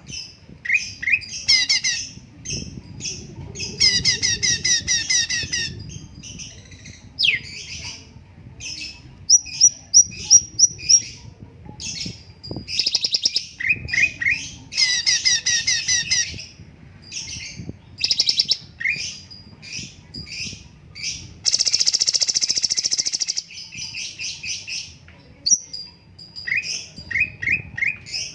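Cucak cungkok songbird singing in quick bursts of chirping trills and rapidly repeated high notes. It breaks into a harsh, buzzy phrase about three-quarters of the way through.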